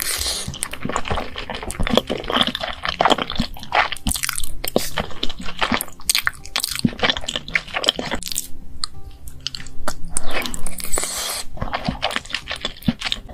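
Close-miked chewing of cheesy meat-sauce lasagna: wet, sticky mouth sounds with dense, irregular clicks throughout.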